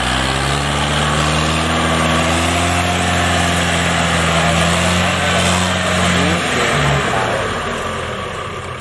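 Shibaura compact tractor's engine pulling through paddy mud: it revs up at the start, holds a steady note, then eases off about six and a half seconds in.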